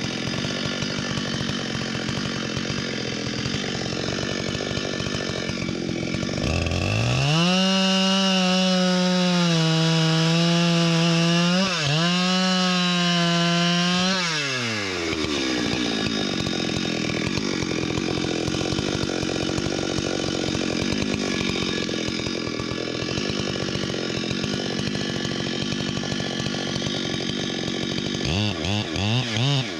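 Two-stroke chainsaw running at low speed, then throttled up to full speed about seven seconds in. Its pitch sags while it cuts into wood, then it drops back to idle about halfway through. Near the end it is revved up and down several times in quick succession.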